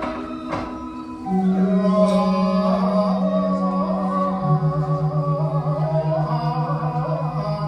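Music: a steady, pulsing low drone that steps up in pitch about a second in and back down midway, with a wavering sung melody above it.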